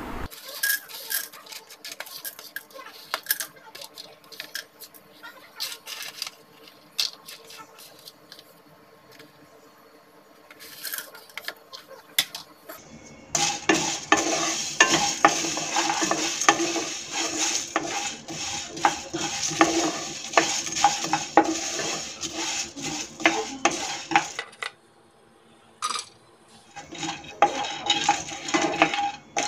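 Whole spices being dry-roasted in a nonstick kadai: a spatula stirring and scraping seeds and pods around the pan, rattling steadily. The first half is quieter, with scattered clicks as the spices are tipped in from a plate; the stirring breaks off briefly near the end, then resumes with the larger spices.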